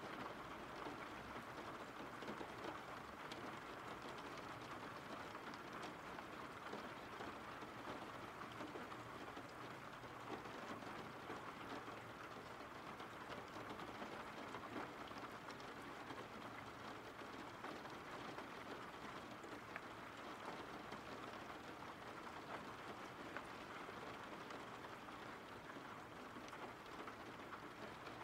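Steady rain: an even hiss with faint, scattered ticks of drops, unchanging throughout.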